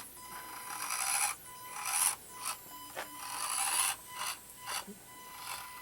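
Axial SCX24 micro crawler's small electric motor and drivetrain whirring in short, uneven bursts of throttle, set to its low speed, as it crawls over a rough course.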